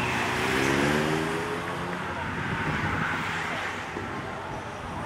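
Street noise with a car engine passing during the first two seconds, over a steady traffic hiss and some background voices.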